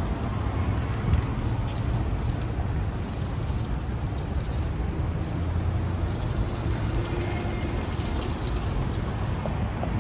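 Steady city traffic noise: a low rumble of passing vehicles.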